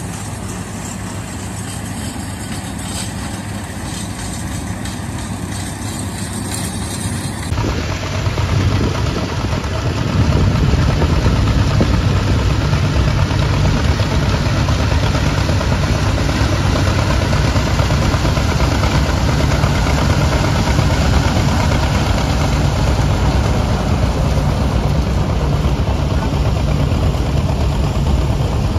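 Vintage farm tractor engines running steadily while pulling and powering corn pickers in the field. The sound changes abruptly about a quarter of the way in and is louder and deeper from about a third of the way in.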